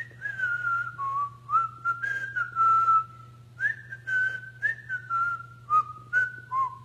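A person whistling a string of short, sliding notes that imitate birds singing.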